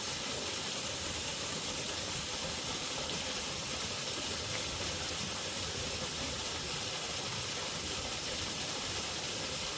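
Waterfall: the steady hiss and rush of falling water, even and unchanging.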